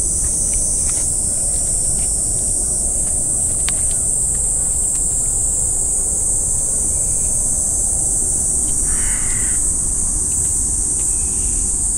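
A crow cawing once, briefly, about nine seconds in, over a steady high-pitched hiss.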